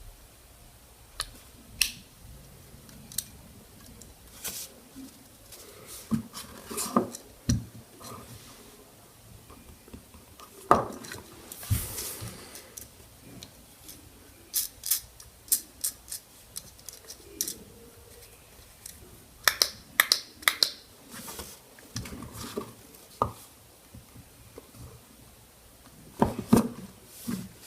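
Plastic fidget cube being clicked and fiddled with: irregular sharp clicks, some in quick clusters.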